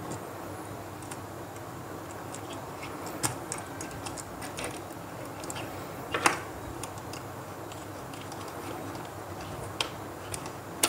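Scattered light clicks and taps of hands working copper wire into the screw terminals of white plastic two-way switches, with a few sharper clicks about three, six and ten seconds in.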